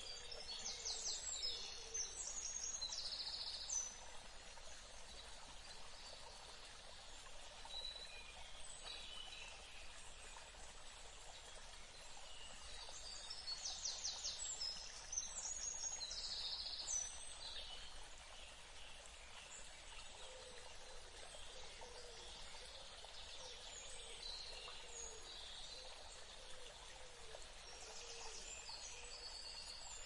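Small songbirds singing high, chirping phrases over a faint steady rush of flowing water; the song comes in clusters near the start, in the middle and near the end.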